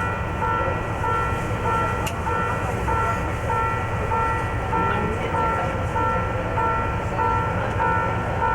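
Electronic warning alarm sounding two alternating tones, a higher and a lower one in turn about once a second each, over a steady low rumble.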